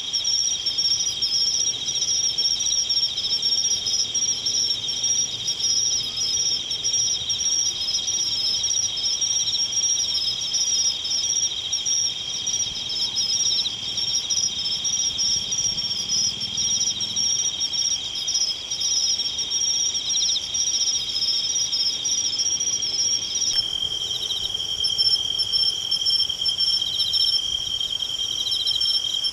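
A chorus of crickets, several high-pitched trills running together without pause. The mix of songs changes abruptly about three-quarters of the way through.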